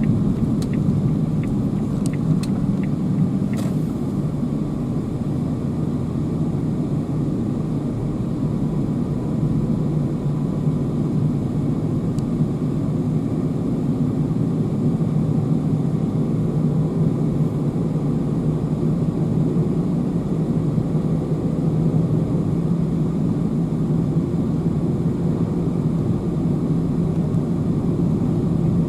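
Car driving, a steady engine and road rumble heard from inside the cabin, with a few light clicks in the first few seconds.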